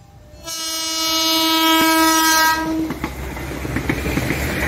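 A locomotive's horn sounds one long blast of about two seconds. It is followed by the rumble and wheel clatter of the train passing close by on the tracks, with a faint wheel squeal near the end.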